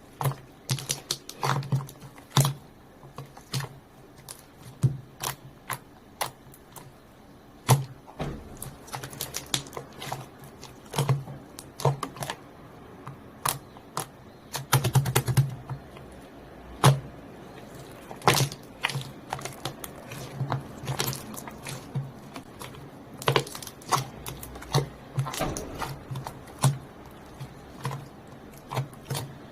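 Slime being squeezed and poked by hand, giving irregular sticky clicks and pops.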